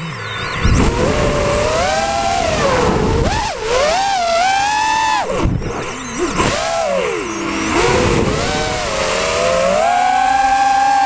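FPV drone's motors and propellers whining, the pitch rising and falling again and again as the throttle changes, with a steady hiss of propeller wash and wind underneath.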